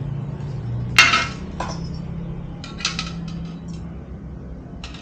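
Metal parts of a folding three-burner camping stove clanking and clinking as they are handled: one sharp, ringing clank about a second in, another shortly after, then a few lighter clinks, over a steady low hum.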